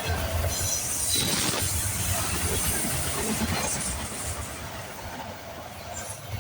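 CSX freight train's intermodal and autorack cars rolling past on the rails, with a steady rumble and wheel noise that eases a little in the last couple of seconds.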